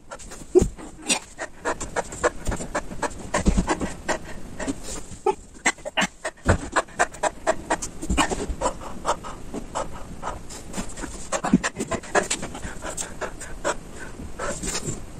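A man breathing hard and panting in quick, irregular puffs from the strain of a long bodyweight workout on a pull-up bar, mixed with many short clicks and knocks.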